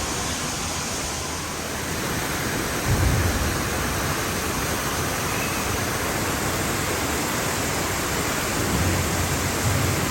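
Steady rushing noise spread evenly from low to high pitch, with brief low rumbles about three seconds in and again near the end.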